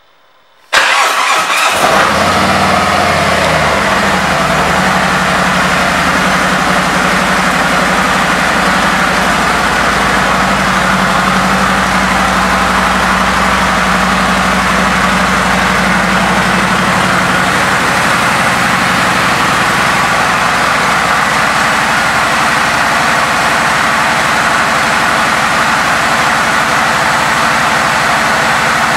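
2017 Harley-Davidson Road Glide Special's Milwaukee-Eight 107 V-twin starting up about a second in, then idling steadily, the idle settling over the first few seconds.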